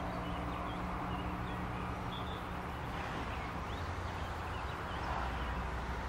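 Small birds chirping over a steady outdoor rumble; a low hum fades about three seconds in and a deeper rumble takes its place.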